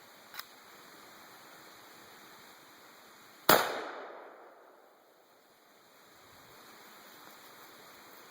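.410 shotgun fired once: a single sharp shot about three and a half seconds in that rings out and fades over a second or so. A light click comes shortly before it, about half a second in.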